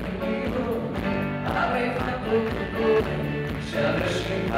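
Live band playing a song, with a singer over acoustic guitar.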